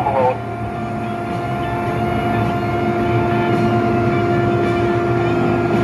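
Heavy engine running steadily, a constant whine held over a low rumble, with no change in pitch.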